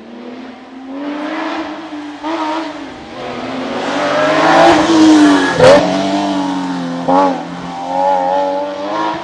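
Rally car approaching at full throttle, its engine revving up through the gears with short breaks at each shift. It passes close and loudest about five and a half seconds in, the pitch dropping as it goes by, then pulls away with another gear change.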